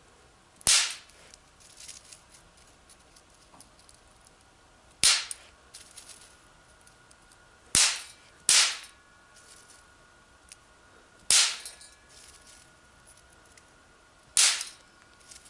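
Bang snaps (silver fulminate snap-pops) are thrown one at a time into a rusty metal pan and go off with six sharp cracks at uneven gaps. Two of the cracks come close together about eight seconds in.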